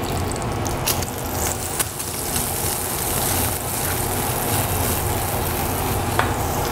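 Minced garlic sizzling in hot olive oil in a stainless steel saucepan, with a steady hiss. A wooden spatula stirs it, scraping the pan and tapping it a few times in the first couple of seconds.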